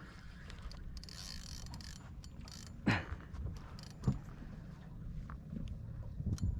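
Fishing reel being cranked, its gears turning with ratcheting clicks as a fish is wound in.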